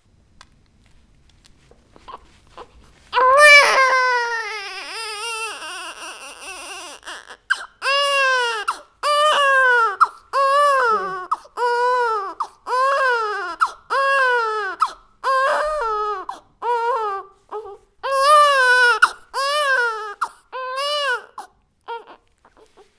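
A baby crying hard. After a few quiet seconds with faint whimpers, a long loud wail starts about three seconds in and trails off. Then comes a run of short, regular cries about one a second, each rising and falling in pitch, which stop near the end.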